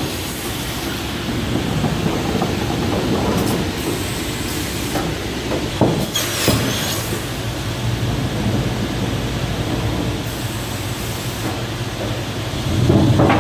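Cursal TVM Ø500 semiautomatic cross-cut saw running, with a steady machine noise, a few knocks and short high-pitched bursts around six seconds in, and a louder surge near the end.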